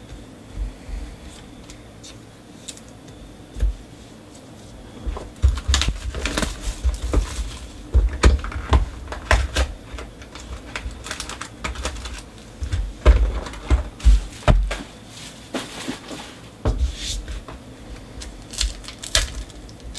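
Hands handling a cardboard trading-card hobby box and its foil-wrapped packs: irregular clicks, taps and rustling of cardboard and wrappers, sparse at first and busy from about five seconds in.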